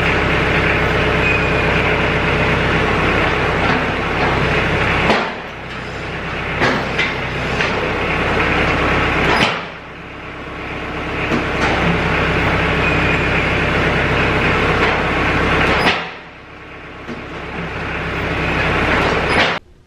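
Compact diesel tractor engine running under hydraulic load while the loader hydraulics swing the front snowplow from side to side. The sound drops off suddenly three times and builds back up, with a few clunks.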